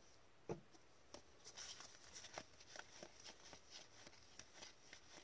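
Faint, light ticks and rustling of a stack of Upper Deck hockey cards being flipped through by gloved hands, one card sliding off the pile at a time, at an uneven pace of about one or two a second.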